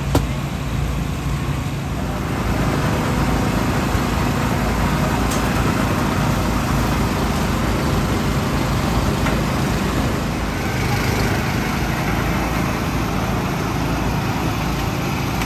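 Busy street-market ambience: a steady low engine rumble with the chatter of many voices in a crowd.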